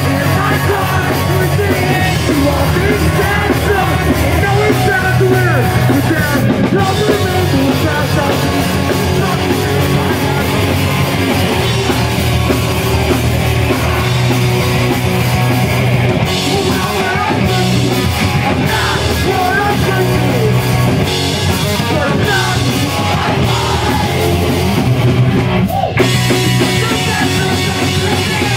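Pop-punk band playing live: distorted electric guitars, bass and drum kit under a singer's shouted vocals.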